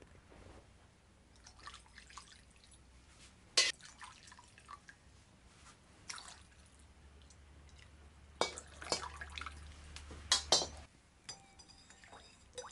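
Caramelized fish sauce dripping and splashing as it is poured into a ceramic bowl, in scattered sharp splashes and taps. Near the end a short ringing clink, like a spoon against the bowl.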